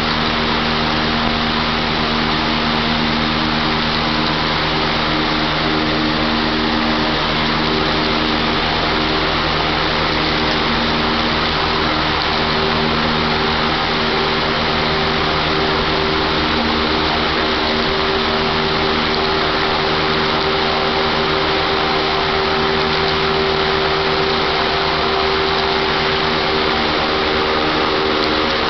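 Steady, loud hum of a running machine, with several held tones that drift slightly in pitch.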